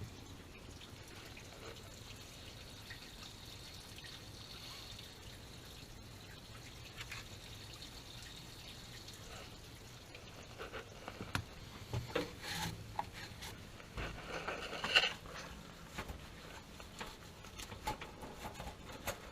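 Water dripping and trickling faintly, with scattered light knocks and clicks starting about ten seconds in.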